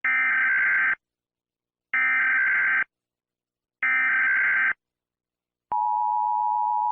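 Emergency Alert System header: three one-second bursts of screechy digital SAME data, each about a second apart. Near the end the steady two-tone EAS attention signal (853 and 960 Hz together) begins.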